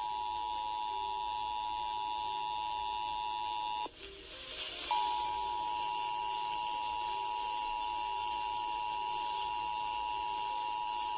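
Emergency Alert System attention tone: a steady, unbroken alert tone that drops out for about a second, about four seconds in, into a short burst of hiss, then resumes. It is the tone that precedes a required monthly test message.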